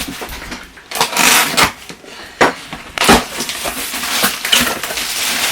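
Cardboard box and its packaging being torn open and handled: a few sharp rips and crunches, then continuous rustling.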